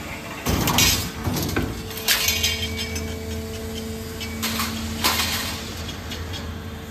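Roll forming machine running with a steady mechanical hum; its deepest hum drops out for the first couple of seconds. Short metallic clanks and rattles come about half a second in, around two seconds, and again between four and five seconds, as the formed steel profile moves through the line and over the roller table.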